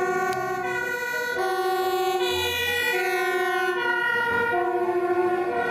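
Two-tone siren of a Dutch fire engine on an emergency run, switching steadily back and forth between a high and a low note.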